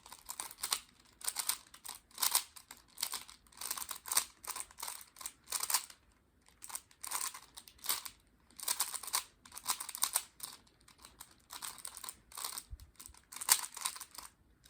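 A 3x3 Rubik's cube being turned fast by hand, its plastic layers clicking and rattling in quick irregular bursts with short pauses.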